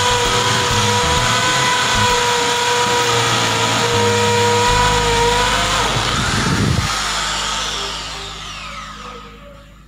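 Mailtank 13 mm impact drill with a 10 mm masonry bit drilling into a concrete block, its motor giving a steady high whine. About six seconds in the drill is switched off and winds down, its pitch falling away as it fades.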